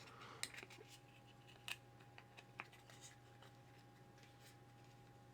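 Faint, scattered clicks and taps of small scale-model parts being handled and fitted together by hand, over a steady faint hum.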